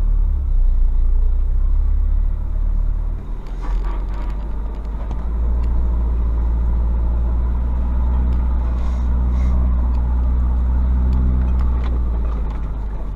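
A pickup's 12-valve WLT turbodiesel engine running steadily at low revs as the truck moves slowly. A few brief scratching sounds come through, about four seconds in and again around nine seconds, like brush scraping along the body.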